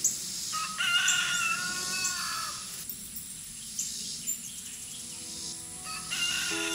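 Bird calls: a run of harsh calls from about half a second to two seconds in and another near the end, over faint background music.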